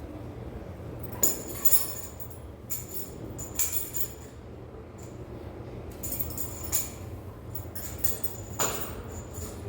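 Irregular metallic clinks and jingles, about eight of them, over a steady low hum of running fans.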